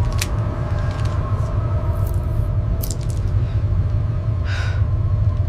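Steady low rumble with faint held tones over it, like the drone inside a moving vehicle's cabin. A few light clicks come as a syringe is handled, and there is a short hiss about two-thirds of the way through.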